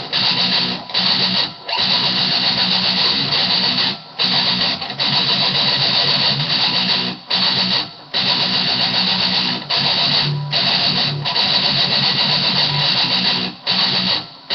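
Distorted electric guitar playing a metal riff, broken by short stops that come in pairs every few seconds.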